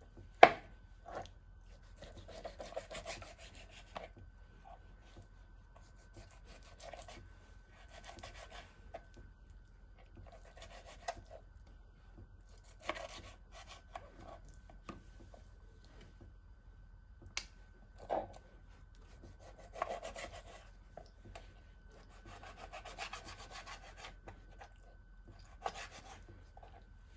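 Groceries being handled and put away: intermittent rustling and scraping of packaging, with a few sharp knocks of items being set down, the loudest just after the start.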